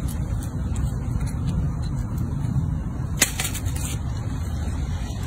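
Steady low rumble with faint scattered clicks of a fox squirrel gnawing an in-shell peanut, and one sharper crack about three seconds in.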